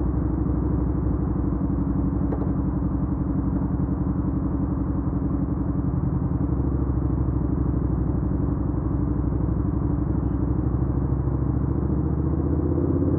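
Suzuki SV650X's V-twin engine idling steadily.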